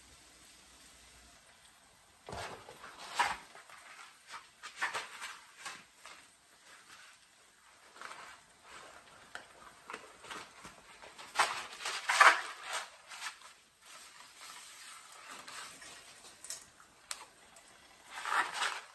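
Scattered rustles and clatters of kitchen handling, loudest about twelve seconds in. Near the end there is a swishing rattle as dry spaghetti is lowered into a pot of water.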